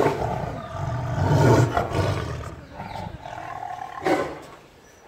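Tiger snarling and growling at close range as a threat display: a sharp snarl at the start, a long low growl over the next two seconds, and another short snarl about four seconds in.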